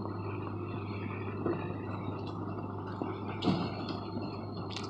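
Steady low drone of a pickup truck's and an excavator's engines working as the excavator tows the truck and fifth-wheel trailer, with a few short knocks and creaks, the loudest about three and a half seconds in.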